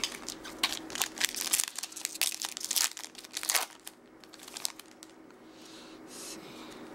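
Crinkly rustling of baseball trading cards being handled, busiest for about the first three and a half seconds, then a few faint rustles.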